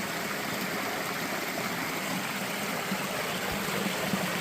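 Small creek's water running over rocks, a steady rushing noise.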